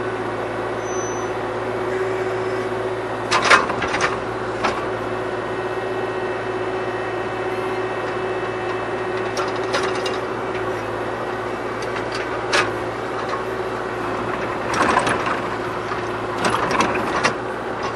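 Kubota KX040 mini excavator running steadily while digging, with scrapes and knocks from the bucket working through very hard, compacted soil, sharpest about three and a half seconds in and again near the end.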